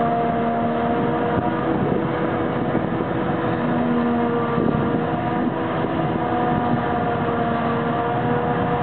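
Claas Jaguar 880 forage harvester running under load, chopping miscanthus and blowing it into a trailer. A steady mechanical drone with a few held whining tones over it, with the tractor pulling the trailer mixed in.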